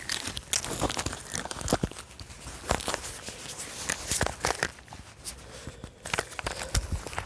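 Handling noise from a smartphone being adjusted inside a coat: fabric rustling and rubbing right on the microphone, with irregular small knocks and scrapes.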